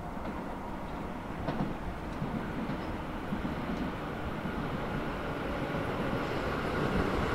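Electric commuter train approaching on the line, its rumbling running noise growing steadily louder.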